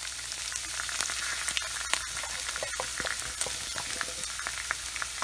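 Chopped red onion frying in hot oil with curry leaves: a steady sizzle with frequent sharp crackles and pops.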